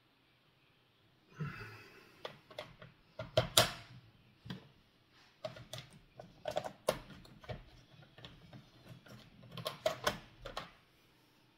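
Small metal bits clicking and rattling as they are picked through and pulled from a plastic bit case. The clicks are irregular and start about a second and a half in.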